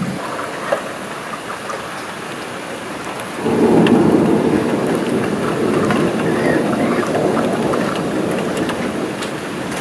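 Steady rain, then about three and a half seconds in a long rumble of thunder starts suddenly and slowly fades.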